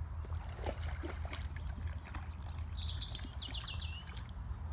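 Lake water splashing and trickling around a wading dog, in scattered short splashes, over a steady low rumble. About halfway through, a songbird gives one short high phrase: a falling note, then a quick trill that drops in pitch.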